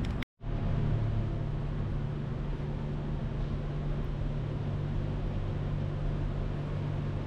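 A steady low mechanical drone, like a running engine, with a constant hum. It cuts out for a moment shortly after the start, then runs on evenly.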